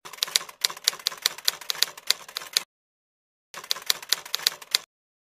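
Typewriter key clacks used as a typing sound effect: a quick, uneven run of sharp clicks that breaks off for under a second about two and a half seconds in, then starts again briefly and stops.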